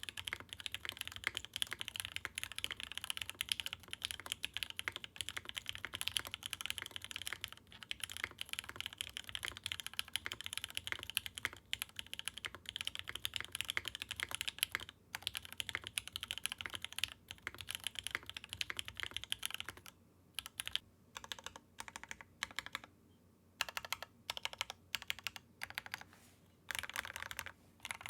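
Typing on a mechanical keyboard fitted with lubed Gateron Blue Bubblegum linear switches (POM stems, INK bottom housings) on a POM plate with GMK keycaps: fast continuous keystrokes, slowing to single separate key presses about twenty seconds in, then fast typing again near the end. A deeper, thocky, quiet-to-mid-volume sound.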